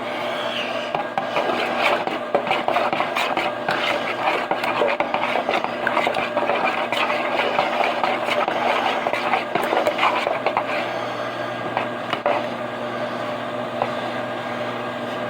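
Continuous rasping and scraping of a kitchen utensil at work on food, irregular and dense for about twelve seconds before easing off near the end, over the steady hum of a microwave oven running.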